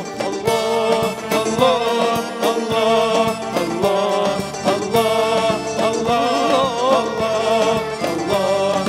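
Male voice singing an Arabic song with wavering, ornamented runs over an instrumental backing with a steady beat, and an audience clapping along.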